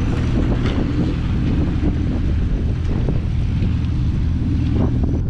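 Wind buffeting the microphone over the steady low drone of a boat engine, with water washing against the hull.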